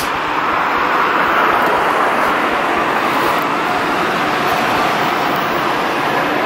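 Steady road traffic noise: an even, continuous rush of vehicles with no distinct events.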